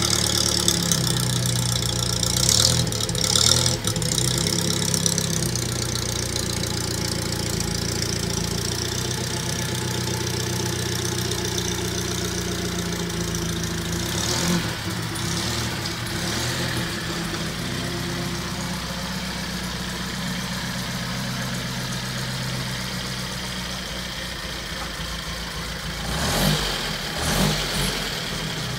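1934 Morris 10's four-cylinder side-valve engine running steadily at low revs as the car moves slowly off, with a few brief louder noises a few seconds in, about halfway and near the end.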